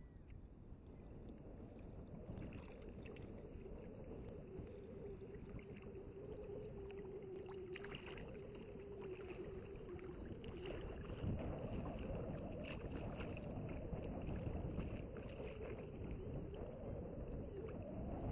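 Wind buffeting the microphone and water sloshing around a person wading waist-deep in open water. The wind gets stronger in the second half. A faint wavering hum runs through the first half.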